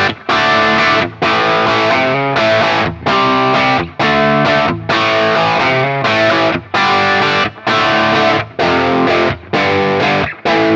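Electric guitar through a J.Rockett Jeff Archer Klon-type overdrive pedal, playing overdriven chords in short, choppy stabs about once a second with brief gaps between them.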